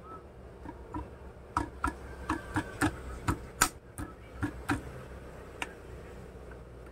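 Irregular sharp metallic clicks and knocks, about a dozen over four seconds, as the metal parts of a hand-lever ID card punch cutter are handled and fitted together; the loudest knock comes a little past the middle.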